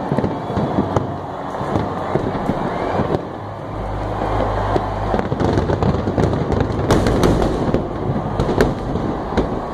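A fireworks display going off with dense crackling and repeated sharp bangs. A low rumble sets in about four seconds in, and the loudest bangs come about seven seconds in and again shortly before the end.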